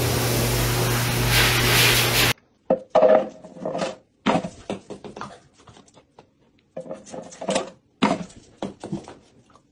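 High-velocity pet dryer blowing steadily on a dog in a steel grooming tub, cutting off about two seconds in. After that come scattered short scuffs and knocks in a quiet room.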